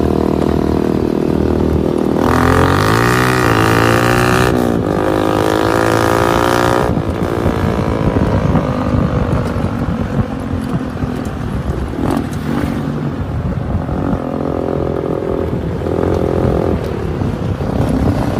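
Homemade four-wheel go-kart's engine revving as it pulls away, the pitch rising and dipping a few times. It then runs rougher and farther off, with a couple of shorter revs near the end.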